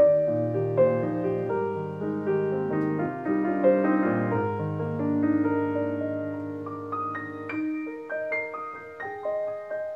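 Background piano music: slow, sustained notes over low bass notes. About three-quarters of the way through, the bass drops out and only higher notes go on.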